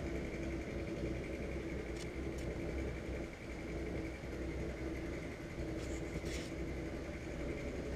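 A steady machine-like hum with a faint constant whine over it, and a few soft ticks now and then.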